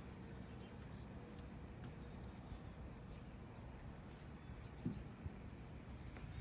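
Quiet lakeside ambience: a low steady outdoor rumble with a faint, steady insect hum above it. Two soft thumps come about five seconds in.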